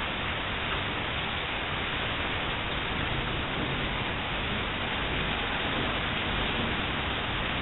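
Thunderstorm rain falling in a steady hiss.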